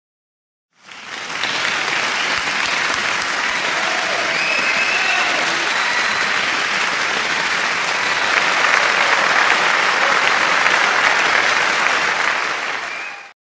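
Applause from a large crowd, a canned effect that swells in about a second in, holds steady, and cuts off abruptly near the end.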